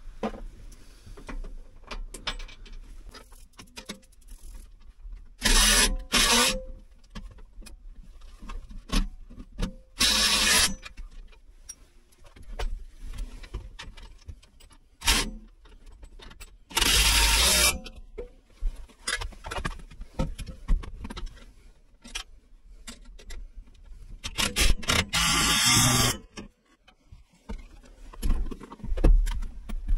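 A handheld power tool runs in four short bursts of about a second each, among scattered clanks and knocks of metal hardware, as a seat is bolted into a truck cab.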